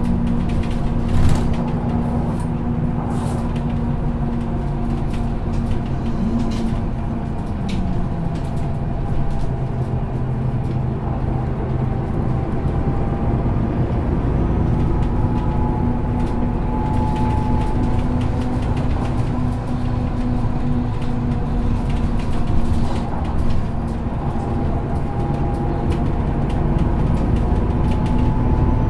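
Articulated 2004 Solaris Urbino II 18 city bus with a ZF Ecomat automatic gearbox running under way, a steady engine drone with a thin whine above it and light rattles. About seven seconds in, the engine note falls as the revs drop.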